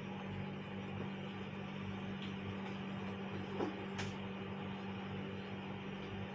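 Pot of traditional sour porridge left boiling on the stove: a steady hiss over a constant low electrical hum, with two light clicks about three and a half and four seconds in.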